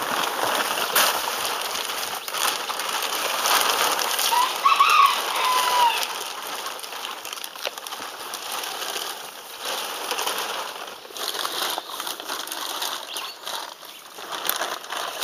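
Plastic sheeting rustling and crackling as it is pulled and spread along a trench. A single short bird call rises and then falls about four seconds in.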